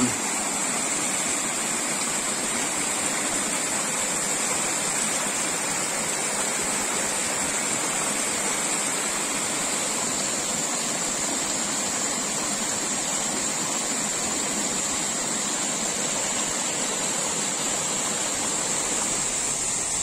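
Small mountain-river waterfall pouring over rock into a deep plunge pool, a steady, even rush of water.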